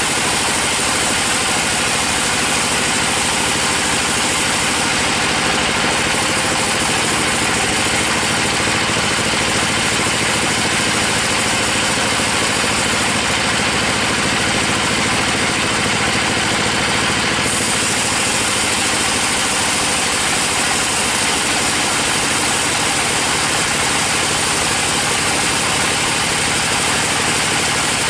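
Sawmill bandsaw running steadily as its blade rips lengthwise through a teak log: a loud, constant machine noise that does not change through the cut.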